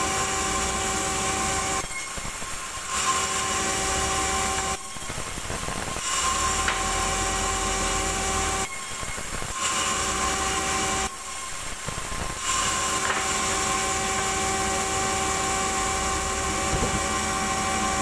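Sawmill band saw running steadily with a constant hum of several tones. A hissing cut is added each time a slab or board is fed through the blade, with short thinner lulls between cuts, about five times.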